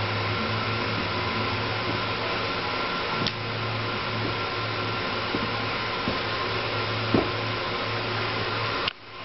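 Steady low hum with an even hiss of room noise, with a few brief knocks, the loudest about seven seconds in. The hum drops out for a moment near the end.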